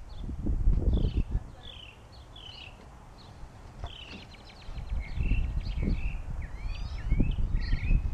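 Birds chirping and singing with quick, repeated short calls. Under them runs a low rumble that comes and goes, loud about a second in and again through the second half.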